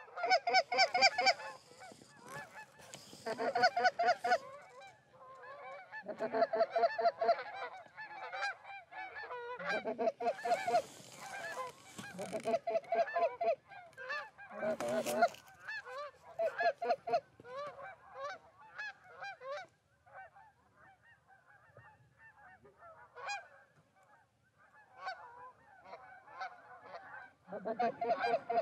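Canada goose honks and clucks, many short calls in quick succession, coming in loud bursts every few seconds, quieter for a stretch and loud again near the end.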